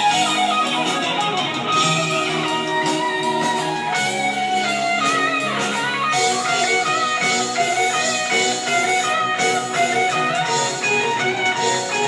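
Electric guitar playing a melody live, with an orchestra accompanying it.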